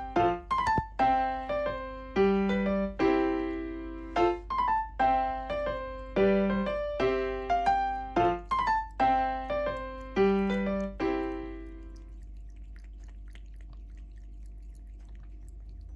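Background piano music: single notes and chords struck in a gentle, regular pattern. It dies away about three-quarters of the way through, leaving a faint low hum with a few faint soft ticks.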